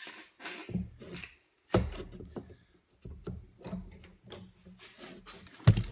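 Wooden boards being handled on a wooden workbench: a string of knocks and light scrapes, with a sharp knock about two seconds in and the loudest knock near the end.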